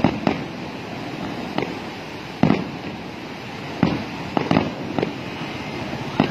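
Aerial firework shells bursting in a display: about nine sharp bangs at irregular intervals, the loudest about halfway through, over a steady background noise.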